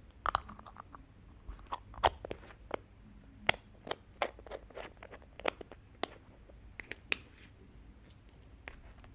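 Paper and small packaging being handled and opened: a run of irregular crinkles, crackles and sharp taps, about two or three a second, thinning out in the last couple of seconds.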